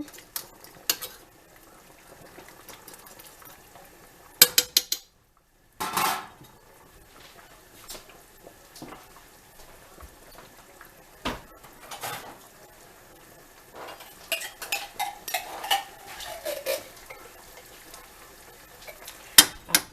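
A metal spoon clinking and scraping against a pot while stirring chicken soup, in scattered knocks with a quick run of clinks about four and a half seconds in and busier clinking near the end.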